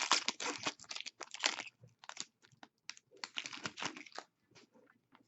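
Crinkling and rustling of trading card packaging and cards being handled during a hockey card break, in two bursts of rapid crackling with scattered small clicks in between.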